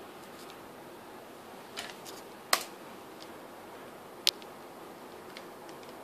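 A few short sharp clicks and taps from a laptop key being pressed to start the cube timer's inspection and a plastic 3x3 Rubik's cube being picked up and handled. The loudest click comes about two and a half seconds in, another about four seconds in, over a steady quiet room hiss.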